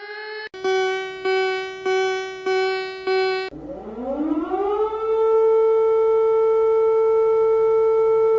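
Emergency alert alarm: five short repeated tones at a bit under two a second, then a siren that winds up in pitch over about a second and a half and holds one steady tone.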